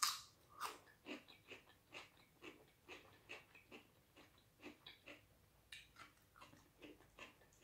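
Close-up mouth sounds of a person chewing raw vegetable salad: a bite at the start, then faint crisp crunches about two or three times a second.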